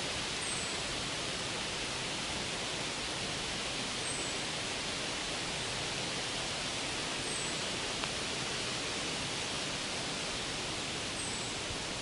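Steady, even hiss of forest ambience, with a bird repeating a short, high, thin, falling call four times, about every three and a half seconds.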